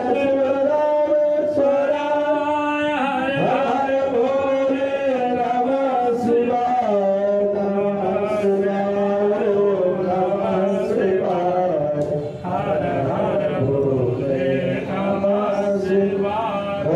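Hindu puja mantras chanted aloud in a steady, drawn-out sing-song on long held notes, with a brief pause about twelve seconds in.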